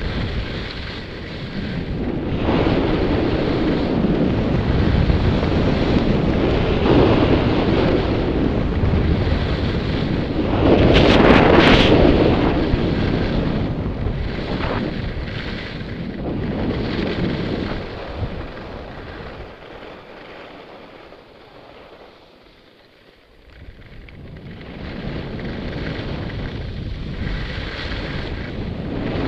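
Wind rushing over a helmet camera's microphone while skiing downhill, mixed with the hiss and scrape of skis on firm, icy groomed snow. It is loudest about eleven seconds in, fades to a lull about two-thirds of the way through, then builds again.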